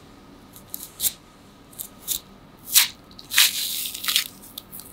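A pomelo being pulled apart by hand, its thick white pith and segment membranes tearing in a series of short rasping tears. The loudest come a little under three seconds in and again at about three and a half seconds.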